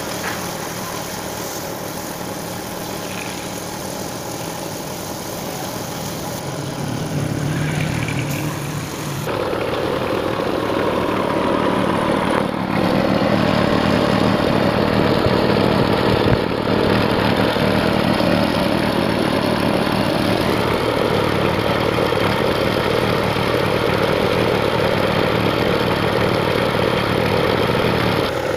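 Small single-cylinder petrol engine running steadily to drive a belt-driven air compressor for spray painting. It gets louder about nine seconds in and then holds steady.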